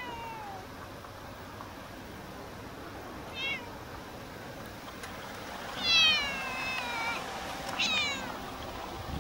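Female stray cat meowing three times: a short meow, then a long meow falling in pitch, the loudest, about six seconds in, and a short one near the end.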